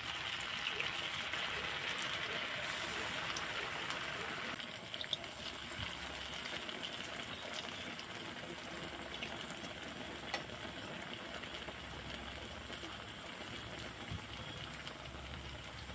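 Spring rolls deep-frying in hot oil: a steady sizzle, louder in the first few seconds and then settling a little, with a few light clicks.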